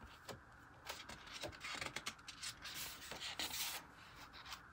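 A paper planner page being turned by hand: faint rustling and fingers sliding on paper, with a few light taps.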